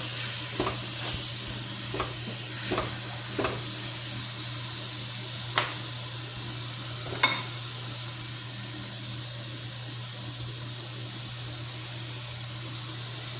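Food sizzling steadily in a hot pan, with about six sharp taps of a utensil against the pan in the first half, over a steady low hum.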